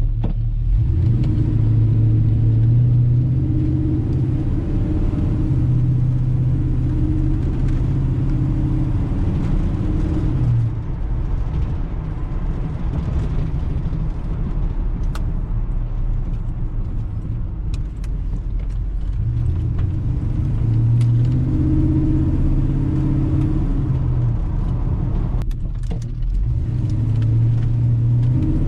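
A truck's freshly rebuilt engine running while the truck is driven, a steady low drone. It eases off briefly twice, about ten seconds in and again near the end.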